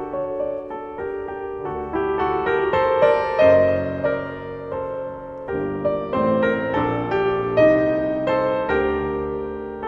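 Soft background piano music, a slow melody over held chords.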